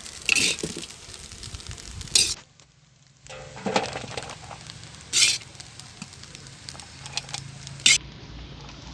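Metal spoon or spatula scraping and clinking against a cooking pan, a few separate strokes, while chicken fried rice is scooped out. A faint sizzle lies underneath.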